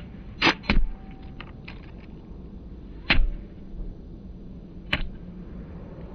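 Sharp thuds of a soccer ball being struck by the foot and bouncing on asphalt: two quick hits about half a second in, another about three seconds in and a lighter one near five seconds, over a steady low background hum.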